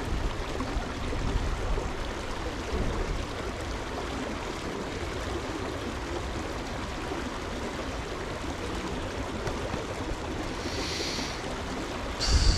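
Steady rushing of a stream flowing, an even wash of water noise, with a brief high-pitched sound near the end.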